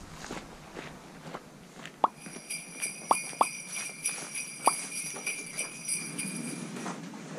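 Jingle bells shaking for a few seconds as a festive sound effect, with four short pops, the first about two seconds in.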